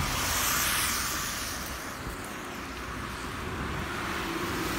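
Road traffic on a wet road: tyre hiss from a passing car swells in the first second, then eases to a steady traffic hiss.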